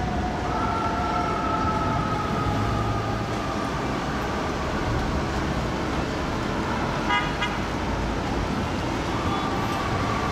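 Traffic rumble on a jammed city street while FDNY fire apparatus sound their warning devices. A long, horn-like tone slowly sags in pitch over a few seconds, a short honk comes about seven seconds in, and the tone sounds again near the end.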